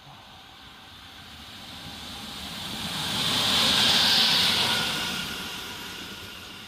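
Class 186 (Bombardier TRAXX) electric locomotive running light through a station at speed. The rush of its wheels on the rails grows as it approaches, peaks with a faint whine as it passes about four seconds in, then fades as it goes away.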